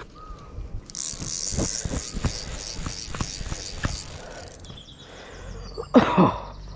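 Fly reel's click ratchet buzzing in a fast, even rattle for about three and a half seconds as line is worked, with knocks from the rod and reel being handled. A brief loud cry comes about 6 s in.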